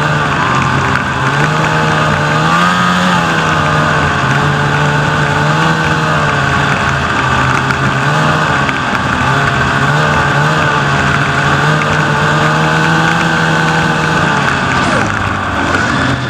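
Snowmobile engine running continuously under way, its pitch wavering gently up and down with the throttle.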